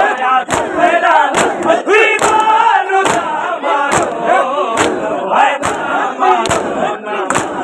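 Matam: a crowd of men beating their bare chests with open hands in a steady rhythm, while chanting and shouting together.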